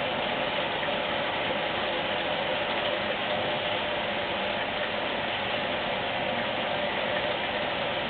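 Water running steadily into the outer tub of a 1971 Simpson Fluid Drive washing machine during its fill stage, an even rushing hiss.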